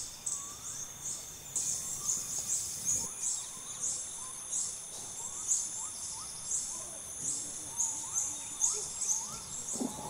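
Rainforest insects: a steady high-pitched drone with a pulsing chirp about twice a second. Short rising call notes repeat more faintly underneath.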